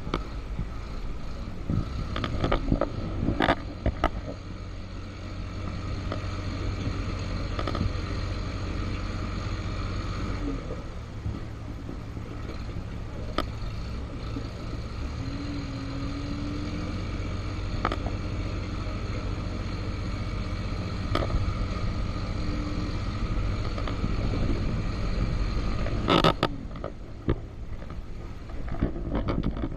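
A vehicle's engine running steadily on a rough, stony off-road track, with sharp knocks and rattles as it jolts over the bumps, the loudest about three quarters of the way through.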